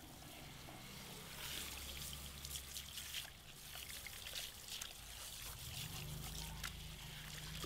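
Handheld shower sprayer running onto wet hair, the water spattering and trickling down into a shampoo basin and its drain.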